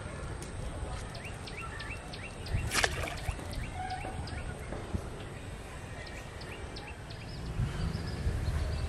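Pond-side outdoor ambience: small birds chirping in short repeated notes over a low steady rumble, with one brief sharp sound with a falling sweep about three seconds in.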